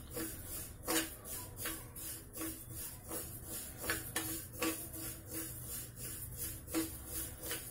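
A spoon stirring dry split moong dal in a stainless steel pan, a rhythmic scrape and rattle of the lentils against the metal about one to two strokes a second, over a low steady hum. The dal is being roasted until golden.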